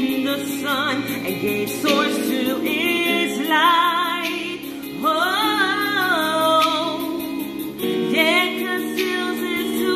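A woman singing a gospel song, with vibrato and sliding melodic runs, over a held chordal backing accompaniment.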